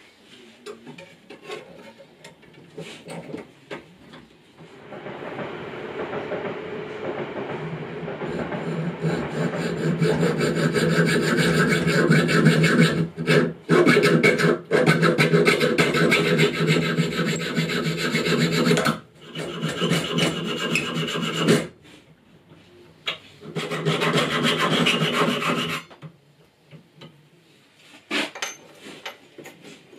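Small hacksaw cutting thin brass tubing, a steady run of rasping strokes that grows louder as the cut goes on. It breaks off twice for a moment near the end and then stops.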